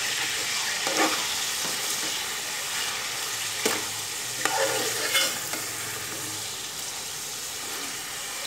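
Chicken pieces sizzling in hot oil in an aluminium pot while a metal ladle stirs them, clinking sharply against the pot a few times over a steady frying hiss.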